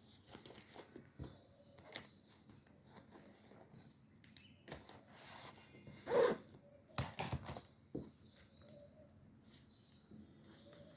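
Paper being handled at a desk: irregular rustling and crinkling with scattered small clicks and knocks. The loudest rustle comes a little past the middle, followed by a few sharp clicks.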